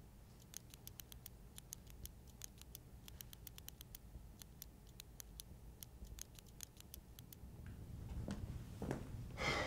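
Faint, irregular clicking of fingernails picking at one another, a nervous fidget. From about 8 seconds in, a few heavier steps come closer.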